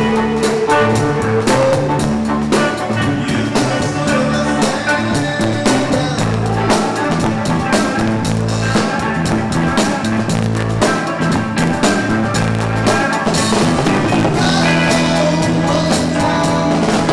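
Jazz band playing: a bass guitar holding steady low notes under a busy drum kit with cymbals and rim hits.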